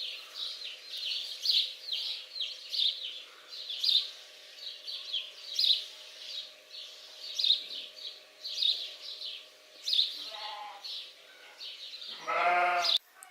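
High-pitched squeaking cries from young animals, repeated over and over, several a second. A short lower call comes about ten seconds in, and a louder, longer call near the end.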